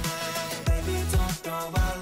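Background pop music with a steady beat, about two beats a second, over a deep bass line.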